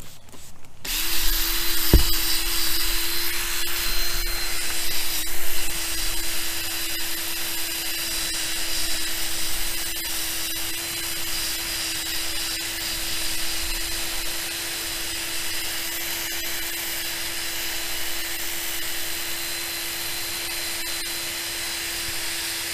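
Electric drill running at a steady speed, spinning a 3M headlight-restoration sanding pad against a plastic windscreen. It starts about a second in, with a steady motor hum under the hiss of the pad rubbing, and a brief knock about two seconds in.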